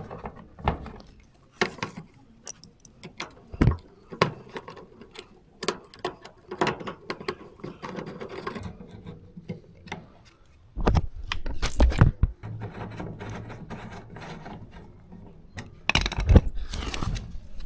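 Irregular clicks, knocks and rattles of a clothes dryer's cover panel being handled, fitted back on and screwed down, with louder bangs about two-thirds of the way through and near the end.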